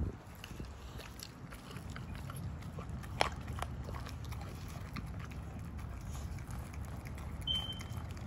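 Dogs licking and chewing at scraps on concrete, with scattered small clicks and one sharper click about three seconds in, over a low steady rumble. A brief high chirp sounds near the end.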